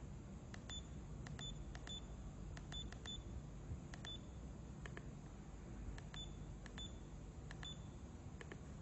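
Acegmet DTX 10 digital tape measure's keypad being pressed: a string of sharp button clicks, each with a short high beep. About fifteen come at uneven spacing, with a pause of about two seconds in the middle.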